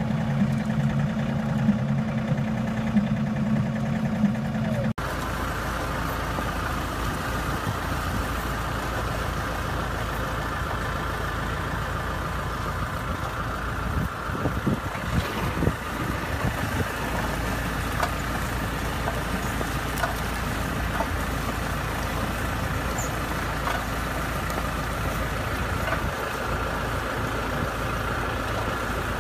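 A vehicle engine running steadily. About five seconds in, the sound cuts abruptly to a different steady engine-and-machinery rumble, with a few clanks near the middle.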